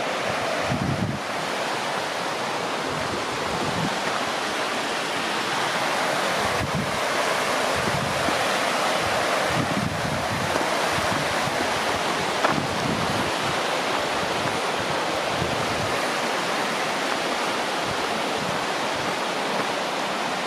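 Little Firehole River rushing steadily, with occasional low buffets of wind on the microphone.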